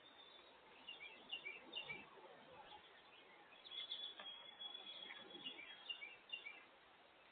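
Small songbirds chirping faintly: clusters of short high chirps about a second in and again from about four seconds, with one longer thin whistled note in the middle.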